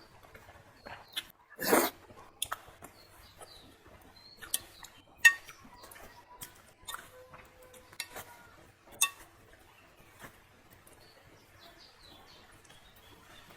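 Close-up eating sounds: chewing and a louder bite or slurp about two seconds in, among scattered clicks and taps of utensils on a dish, the sharpest about five seconds in. Faint bird chirps in the background.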